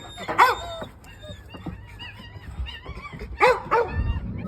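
Excited German Shepherds barking and yelping: a loud bark about half a second in and another near three and a half seconds, with thin high whining in between.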